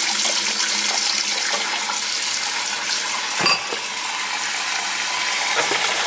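Kitchen faucet running a thin stream of hot water into a plugged sink basin as it fills, a steady splashing hiss. There is a single short knock about halfway through.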